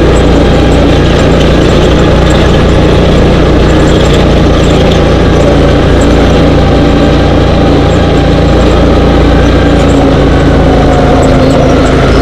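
Dune buggy engine running steadily at a fairly constant pitch, very loud and close to the microphone, with scattered small rattles.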